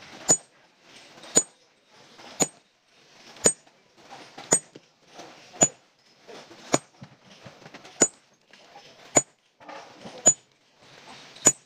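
Sledgehammer striking steel wedges set in a row of drilled holes in a boulder, splitting the rock: a steady series of sharp metallic clanks with a brief high ring, about one a second, eleven blows in all.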